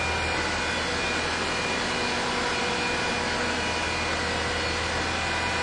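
1997 Ford Ranger engine idling steadily, running on a newly replaced fuel pump.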